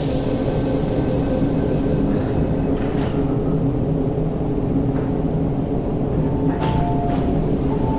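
Steady hum of a stationary MTR metro train at an underground platform as its doors and the platform screen doors slide shut. There is a knock about three seconds in and a couple more near the end.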